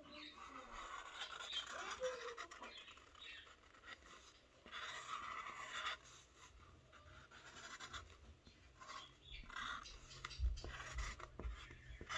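Faint scratching and rustling of a cardboard sheet being handled, in several short spells, with a few soft low thumps near the end.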